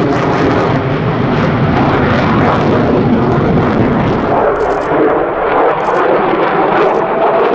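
F-16 Fighting Falcon's jet engine making a loud, continuous rough roar as the fighter flies its display overhead. The deep low rumble thins out about halfway through.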